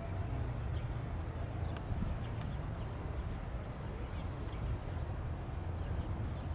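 Low, steady rumble of a Lockheed C-130H Hercules' four turboprop engines, its propeller hum dying away at the start, while small birds chirp now and then.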